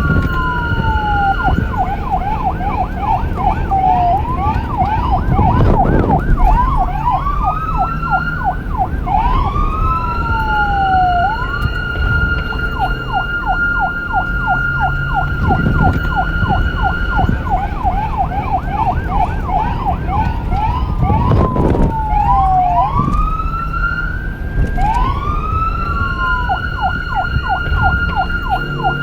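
Police car electronic siren switching between patterns: rising wails that hold a steady high tone, falling sweeps, and a fast yelp of about three sweeps a second. Vehicle rumble runs underneath.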